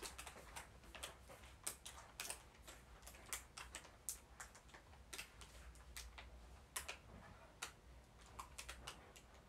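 Faint, irregular clicks and light taps, a few a second, over quiet room tone.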